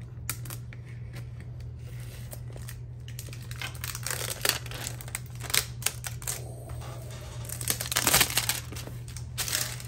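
A small blade slicing the factory seal on a cardboard box, then the box being opened and plastic packaging rustling and crinkling in irregular spells, busiest about four and eight seconds in.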